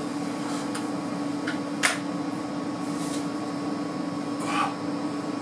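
A steady low electrical-sounding hum fills the room, with a few small clicks and knocks of handling at a bathroom sink; the sharpest click comes about two seconds in.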